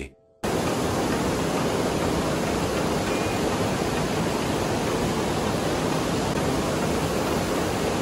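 Small waterfall in a rocky canyon stream, a steady rush of falling water over stones that starts abruptly about half a second in.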